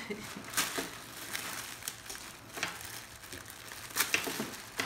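Packaging crinkling and rustling in short, irregular crackles as new clothes are handled out of the box.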